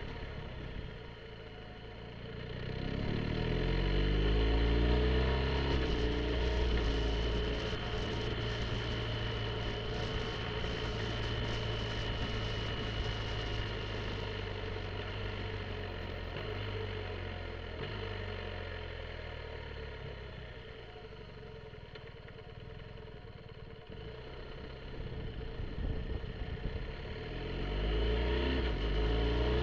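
BMW R1250 GSA's boxer-twin engine running under way, its note rising as it accelerates about three seconds in, easing off and quieter past the twenty-second mark, then picking up again near the end.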